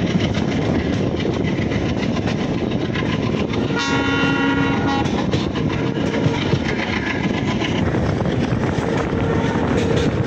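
Indian Railways passenger train running, with a steady rumble and the clickety-clack of wheels over rail joints. A train horn sounds once, about four seconds in, for just over a second.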